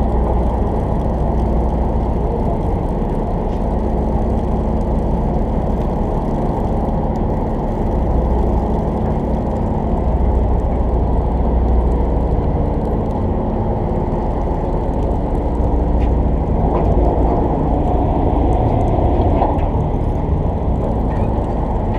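A party boat's engine running steadily, a constant low drone with a faint hum.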